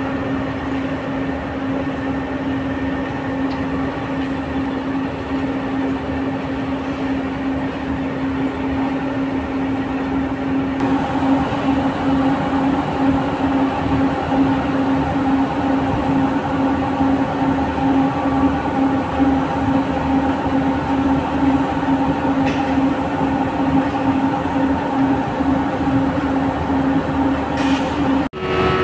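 Steady drone of heavy cement-plant machinery, with a constant low hum. About eleven seconds in it grows louder and a second, higher hum joins it. It breaks off for a moment just before the end.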